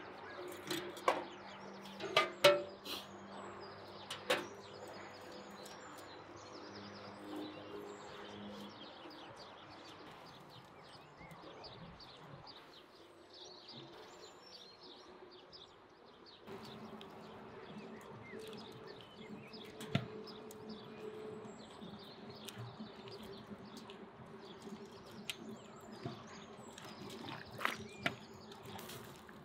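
Quiet cooking sounds over a faint steady hum: a few sharp knocks in the first few seconds, then, after a change about sixteen seconds in, a metal fork clicking now and then against a steel pot as cabbage leaves are lifted off in steaming water.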